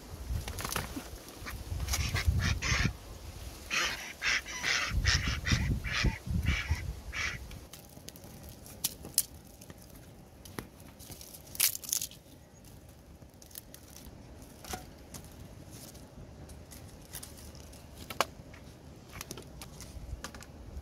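A duck calling repeatedly for roughly the first seven seconds, with low rumbling bumps among the calls. After that it is quieter, with a few sharp clicks around the middle.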